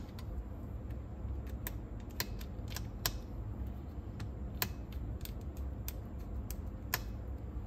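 Scattered light clicks and taps, irregular, about one or two a second, over a steady low rumble.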